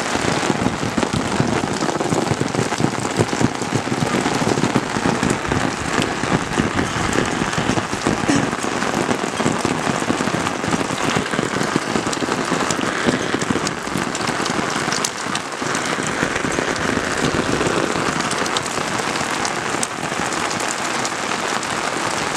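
Steady, fairly loud rain falling: a dense hiss dotted with the ticks of individual drops.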